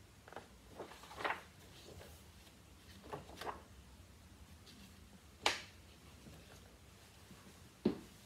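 Music books being handled and lifted off a grand piano's music desk: scattered soft rustles and knocks, with sharper knocks about five and a half seconds in and again near the end.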